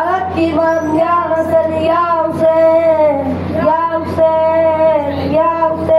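A boy singing a noha, a Shia lament, in long held, slightly wavering phrases with short breaths between them.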